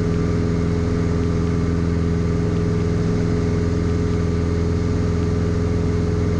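Piston engine and propeller of a single-engine light aircraft running steadily under climb power, heard from inside the cockpit as a constant drone with several steady hum tones and no change in pitch or level.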